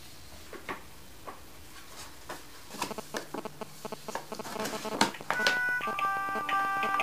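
Paper rustling and crinkling as an envelope is handled, then about five seconds in a mobile phone starts ringing, its ringtone a simple melody of short steady tones.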